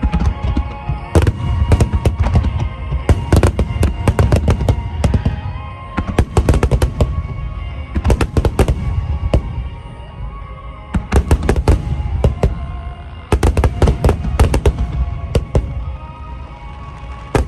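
Fireworks display bursting in rapid volleys, many sharp bangs and crackles in clusters with short lulls between them, over music playing throughout.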